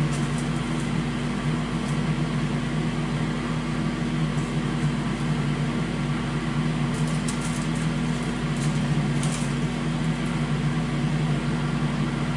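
Steady low mechanical hum with an even hiss, like a running fan or motor, with a few faint light clicks about seven to nine seconds in.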